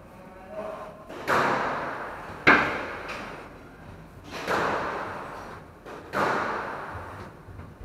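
Squash ball smacking off racket and court walls during a rally: four loud hits one to two seconds apart, each ringing on in the echo of the enclosed court, the sharpest about two and a half seconds in.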